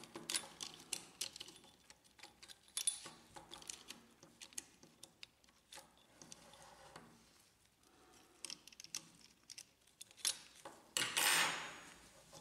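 Faint, irregular clicks and taps of a metal pick against the plastic separation claws and frame of a laser printer fuser unit as the claws are set over the upper fuser roller. A little after eleven seconds comes a short, louder scraping rustle as the fuser assembly is handled.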